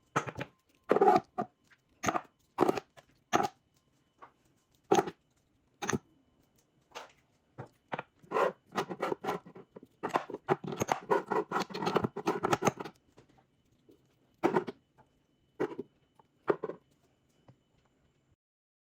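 Kitchen items being handled: an irregular series of short knocks, clicks and rustles, busier with rustling in the middle stretch.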